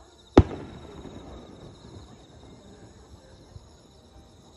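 An aerial firework shell bursting: a single sharp boom, followed by about a second of rumbling echo that fades away.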